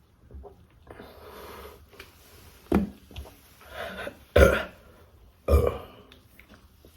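A woman burping, three short loud burps about a second or two apart with smaller ones between, brought up by chugging a 2-litre drink.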